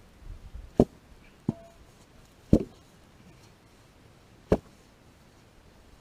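Shovel striking the ground four times at uneven intervals, sharp chopping hits, one with a brief metallic ring from the blade, while beating out a small brush fire.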